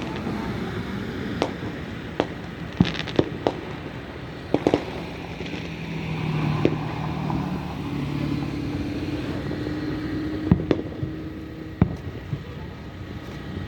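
Fireworks going off: about a dozen sharp bangs and pops at irregular intervals, several in a cluster in the first five seconds. Under them runs a steady low rumble, with a droning low hum through the middle.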